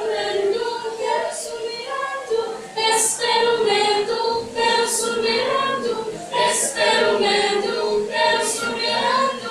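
A mixed group of young men's and women's voices singing together unaccompanied, a slow melody of held notes, with a short sharp hiss about every couple of seconds.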